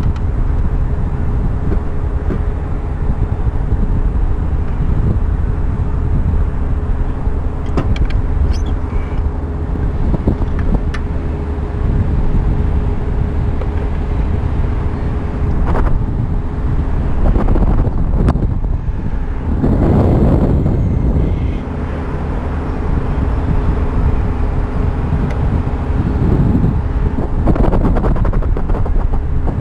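Wind buffeting the microphone high on a ship's radar mast, with a faint steady low hum beneath it. Scattered sharp clicks come from hands working the radar unit's cables and parts, and the wind surges louder about twenty seconds in and again near the end.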